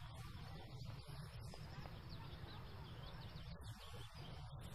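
Faint chirping of small birds, a quick scatter of short rising chirps through the middle of the clip, over a low steady hum of room tone.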